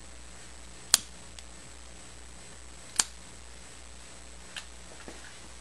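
Two sharp clicks about two seconds apart, then a few faint ticks, over a steady low hum, while the spirit burner under a model Stirling engine's hot cylinder is being lit.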